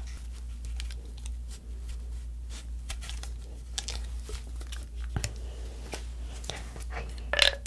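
Close-miked scratching, clicking and rustling as a straw is pushed into a hole cut in a young coconut's shell and the coconut is handled, with a louder rustle near the end.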